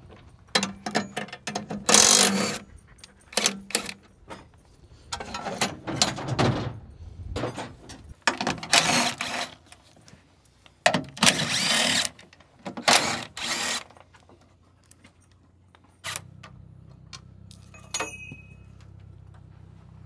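Cordless driver running in short bursts of about half a second to a second each, spinning bolts on a combine's feeder house, with clicks and clinks of metal between bursts. A steady faint low hum comes in near the end.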